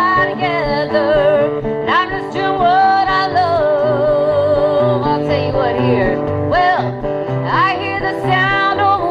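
Live country song: strummed acoustic guitar and a walking bass line under a lead melody that wavers and slides up into its notes.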